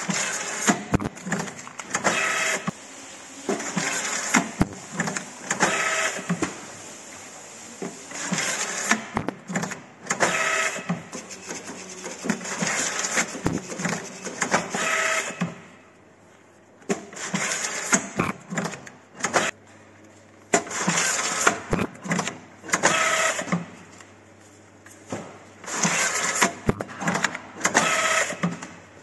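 ATS ultrasonic paper-banding machine cycling as it bands bunches of leeks: a short burst of motor whirring with a steady pitched whine and clicks repeats about every two seconds, with a brief pause around the middle.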